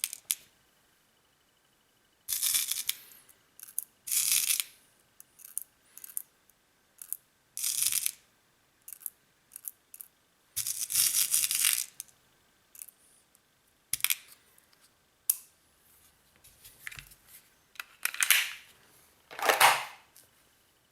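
Irregular rustling and clattering handling noises, in bursts of under a second each, with short clicks between and quiet gaps.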